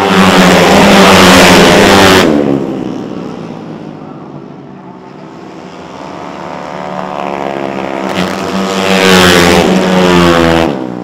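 Racing four-stroke Vespa automatic scooter engine held at high revs with a near-steady note, loud and close for the first two seconds, then falling away abruptly. It grows again and is loud for the last few seconds before cutting off suddenly near the end.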